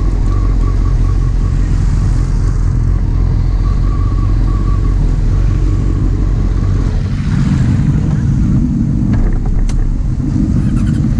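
Honda CBR929RR sportbike's inline-four engine running at low revs as the bike rolls slowly, a steady low drone that grows fuller about seven seconds in.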